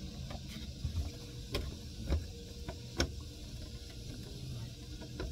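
A few sharp knocks and clicks, three standing out about one and a half, two and three seconds in, over a low steady rumble: people shifting about on a fishing boat deck.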